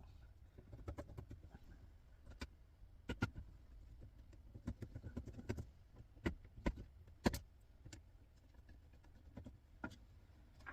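Scattered light clicks and taps of a screwdriver working small screws out of a small plastic-and-metal electrical unit, with a low steady rumble underneath.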